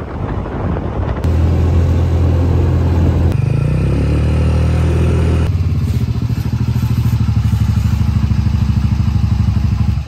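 A three-wheeled motorcycle's engine running as it rolls slowly up, its pitch shifting a few seconds in, then settling into an idle with an even, pulsing beat for the second half.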